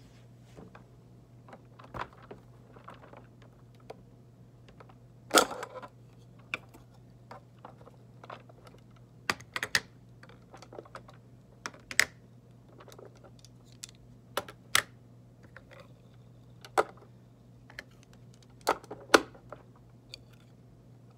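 Irregular clicks and light taps of hands handling a glossy sphere and the clear plastic pieces fitted onto it, over a steady low hum.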